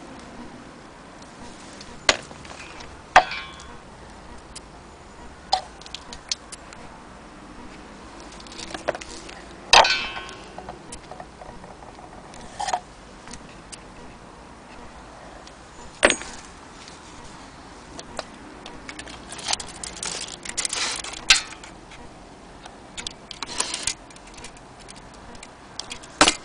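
Antique cuckoo clock being handled: irregular metallic clicks and knocks from its case and mechanism, a few of them ringing briefly, with a quicker run of rattling clicks about three-quarters of the way through.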